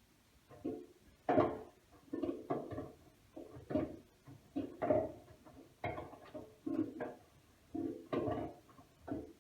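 Miele W1 washing machine drum turning and tumbling the damp laundry: a run of soft, irregular thuds, about one or two a second, that starts and stops after a quiet stretch.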